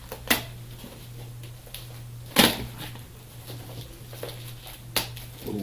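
Over-taped package being pulled open by hand: three sharp handling noises, the loudest about two and a half seconds in, over a steady low hum.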